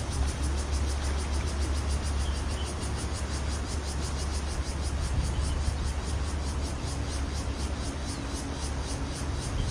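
Steady outdoor ambience by a flowing river: a constant low rumble and hiss, with a high, fast, even pulsing of about five beats a second.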